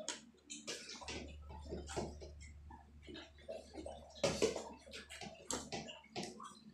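Hands working in a stainless steel basin of water: irregular splashing and small knocks against the metal.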